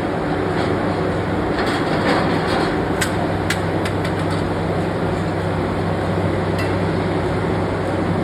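Steady workshop machinery running with a low hum, with a few sharp clicks or taps about three to four seconds in and once more near the end.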